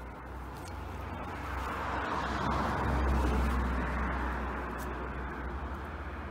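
A car passing by: its tyre and engine noise swells to a peak about halfway through and then slowly fades, over a steady low rumble.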